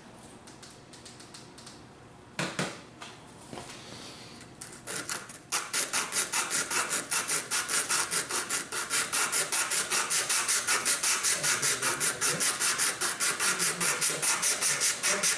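Sandpaper rubbed back and forth by hand on the wooden nose of a Kentucky rifle stock, shaping it to take the nose cap. A few light knocks come first; about five seconds in, steady rapid strokes begin, about four a second.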